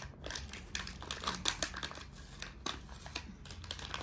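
Shiny vacuum-packed chip wrapper crinkling and crackling in the hands as it is squeezed and worked to empty it out, in many irregular little crackles.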